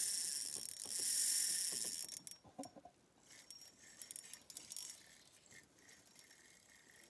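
Fishing reel's drag buzzing as a hooked pike pulls out line, for about two seconds, then fading into scattered clicks from the reel as the fight goes on.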